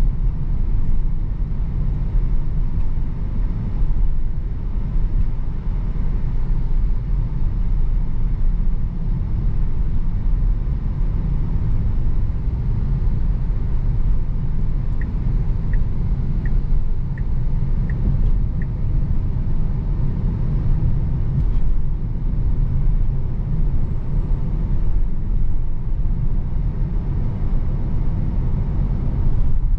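Steady low road and tyre rumble inside the cabin of a 2023 Tesla Model Y Performance cruising on a town road, with no engine note from the electric drive. About halfway through, a short run of six light, evenly spaced ticks.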